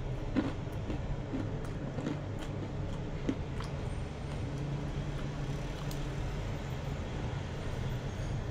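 A steady low hum, with faint scattered clicks and crunches of someone eating crispy fried chicken skin and rice by hand.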